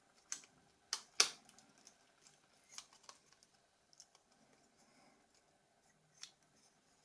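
Scattered small clicks and taps from handling and fitting the parts of a disassembled Nokia 6600i mobile phone during reassembly, the sharpest one about a second in.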